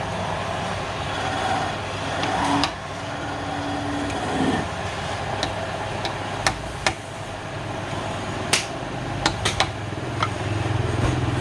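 Sharp knocks and taps at uneven intervals over a steady low mechanical hum that grows louder near the end.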